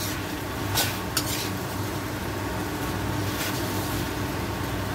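Stir-frying in a wok: a spatula scrapes and tosses pork and bell pepper over a steady sizzle, with a few sharp scrapes or clinks against the pan, one about a second in and another near the middle.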